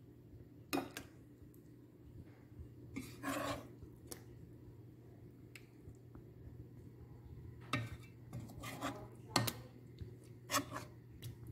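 A serving spoon scraping and clinking against a non-stick pot and a ceramic plate while stewed chicken is dished out: about eight scattered clicks and scrapes, one longer scrape a little after three seconds. A faint steady hum runs underneath.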